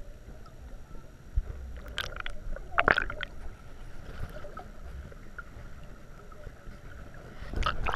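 Underwater sound heard through a submerged microphone: a low, muffled rumble of water with a couple of short gurgles about two and three seconds in, and louder sloshing near the end as it breaks the surface.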